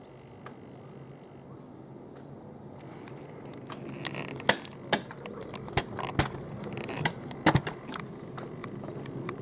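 Faint, steady drone of an Airbus EC175 (H175) helicopter flying off in the distance. From about four seconds in it is overlaid by a run of sharp, irregular clicks and rattles, which are the loudest sounds.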